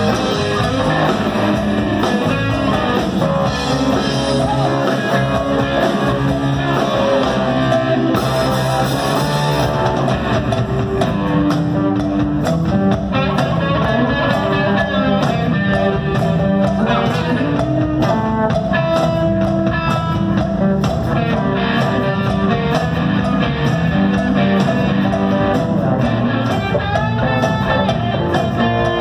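Live rock band playing: a Zemaitis pearl-front electric guitar over bass and drum kit, heard through the theatre's PA from the audience.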